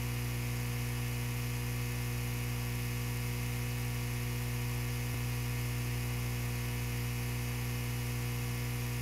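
Steady electrical mains hum with a buzz of overtones above it and a faint hiss, unchanging in level.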